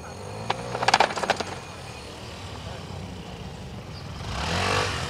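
Small motor scooter engine running at low speed through a slalom, with a quick run of sharp clacks about a second in. The engine revs up near the end, rising and then falling in pitch.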